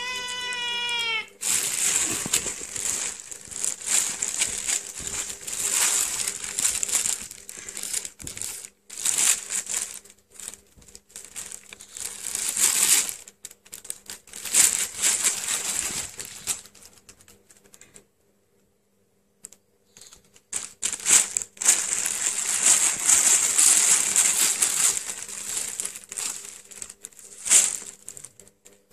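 Thin plastic bag crinkling and rustling in repeated bouts as cats struggle and wrestle in it, with a short pause past the middle. A single meow with falling pitch comes right at the start.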